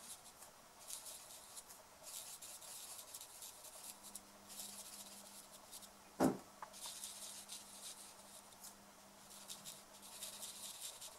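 Marker tip dabbing and rubbing on card stock in short, faint scratchy strokes as small berries are coloured in. One brief louder sound about six seconds in.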